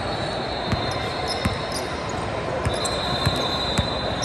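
A basketball being dribbled on a hardwood gym floor, a few separate bounces over the steady, echoing din of a large gym with players and spectators.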